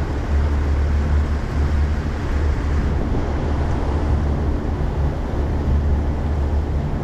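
A small boat's outboard motor running steadily, a low hum with a hiss of wind and water over it.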